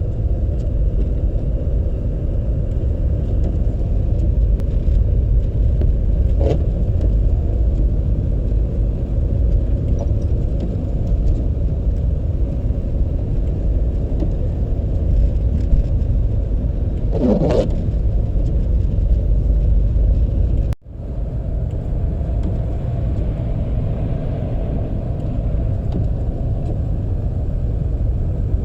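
A car being driven: a steady low rumble of engine and road noise. About 17 seconds in a short whine rises and falls, and about 21 seconds in the sound cuts out for an instant before the rumble resumes.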